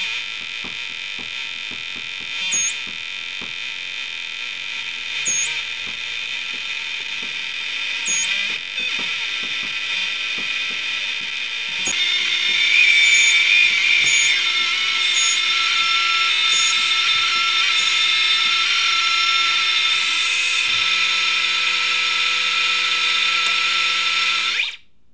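Homemade CD40106 Schmitt-trigger synth, six square-wave oscillators mixed through a small amplifier and speaker, playing a dense wall of chaotic buzzing tones with a swooping chirp that repeats every few seconds. About halfway through it gets louder and busier, low tones join near the end, and then it cuts off suddenly.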